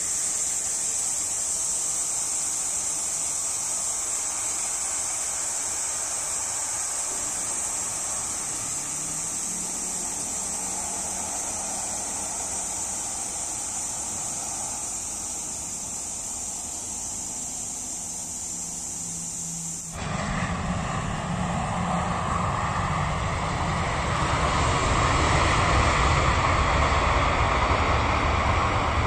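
Jet airliner's engines on its landing roll, a steady hiss with a faint low hum. About two-thirds of the way through the sound changes abruptly to a louder low rumble that swells near the end.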